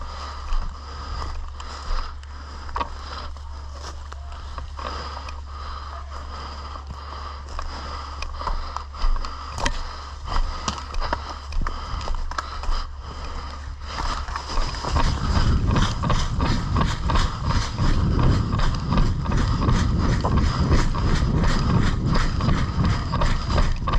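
Footsteps and rustling of clothing and gear picked up by a body-worn camera, with scattered sharp clicks. About 15 seconds in, the steps become faster, louder and evenly spaced, as at a run.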